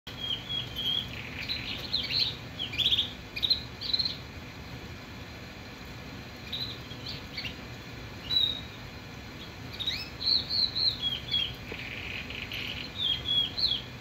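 Shirazi silver canary singing in short phrases of chirps and trills, with a lull of about two seconds after the first few seconds. Its song has opened but is not yet full song.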